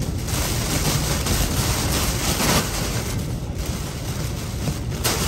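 Category 4 hurricane eyewall wind and driving rain beating against a truck, heard from inside the cabin as a steady rushing noise.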